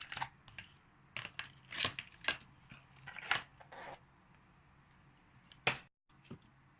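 Slime being squished and stretched by hand, giving irregular crackling, squelching pops, with one sharp pop near the end.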